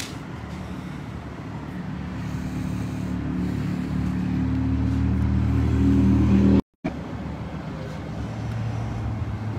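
A motor vehicle's engine running close by, growing steadily louder for several seconds. About two-thirds of the way in, the sound cuts off abruptly in a brief drop to silence, and a quieter engine sound carries on afterward.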